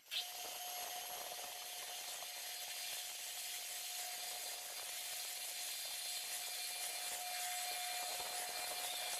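A machine tool cutting metal: a steady, even hiss with a thin, steady whine running through it.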